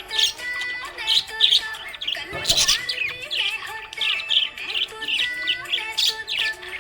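Budgerigars chirping rapidly and repeatedly, with one louder harsh burst about two and a half seconds in, over background music.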